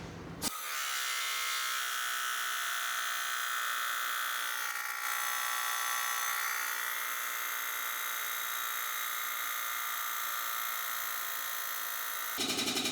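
Air-over-hydraulic pump of a Rogue Fab tube bender running with a steady, loud, high buzz as it drives the hydraulic ram through a bend. Near the end it changes to a rapid pulsing.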